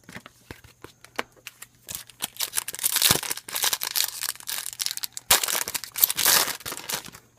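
A foil trading-card pack wrapper being torn open and crinkled by hand: a few light clicks, then two spells of dense crackling.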